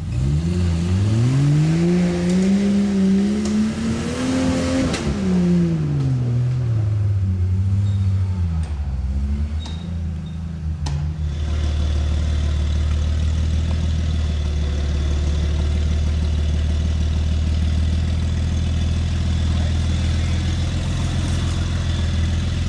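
Jeep engine revving hard, its pitch climbing for about five seconds and then falling back, with a shorter rev after it. From about halfway in, a steady low engine drone as a lifted Jeep crawls slowly over rocks.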